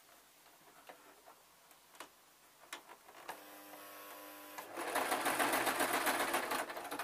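Electric sewing machine stitching through thick, dense fur fabric at the puppet's ear. A few light handling clicks come first. A steady motor hum starts about three seconds in, and from about five seconds in the machine runs fast and loud, stitching.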